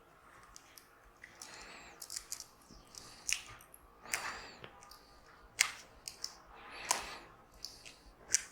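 Adhesive tape being pulled off the roll and wrapped around a coaxial cable joint: a series of short, sharp tearing crackles with squeaky high swishes, about five strong ones.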